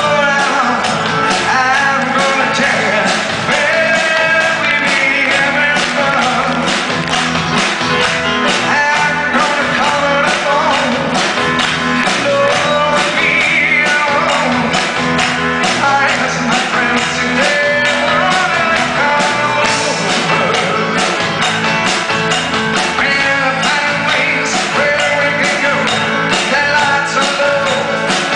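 A live band playing a pop-rock song with acoustic guitar, electric bass and drums, a man singing lead over it.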